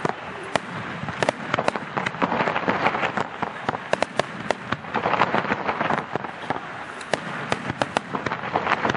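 Aerial firework shells bursting in quick succession: a dense run of sharp bangs and pops, several a second, over a steady rush of noise.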